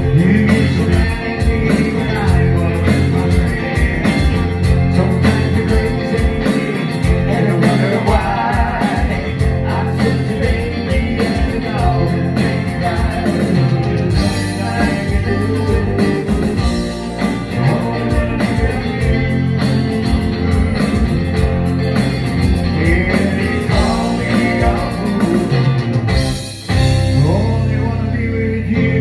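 Live rock band playing: electric guitar and electric bass, with singing over them. The music dips briefly near the end, then carries on.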